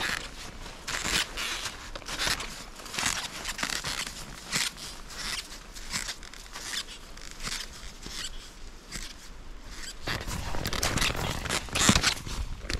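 Footsteps crunching in thin snow at a steady uphill walking pace, about one to two steps a second, with a low rumble joining from about ten seconds in.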